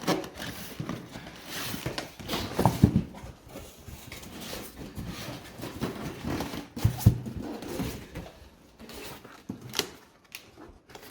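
Monitor packaging being handled while a part is worked free of the box: irregular rustling and scraping with a few sharp knocks.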